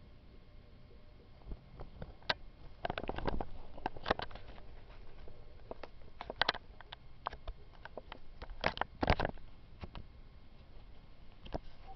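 Irregular taps, scratches and rustles of a cat and a lizard moving and scrabbling on a hard surface, busiest around three to four seconds in and again near nine seconds.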